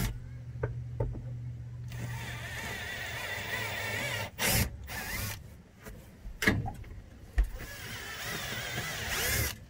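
Cordless drill running in two spells, drilling 5/32-inch pilot holes through the screw holes of metal mounting plates into a pontoon's plywood floor, with a few sharp knocks between the spells.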